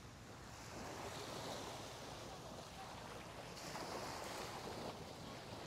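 Small waves washing onto a sandy beach: a soft surf hiss that swells and eases a few times.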